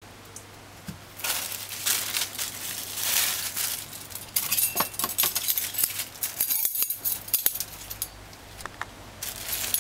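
Kitchen handling around a stainless steel mixing bowl: irregular scrapes, clinks and rustling of utensils and ingredients, busiest from about a second in and dying down near the end.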